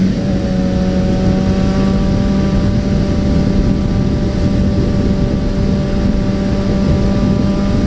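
Suzuki Bandit 650N's inline-four engine running at a steady cruising speed, its pitch holding nearly level, under heavy wind noise on the bike-mounted camera.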